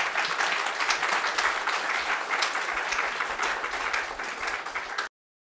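Audience applauding steadily, the sound cut off abruptly about five seconds in.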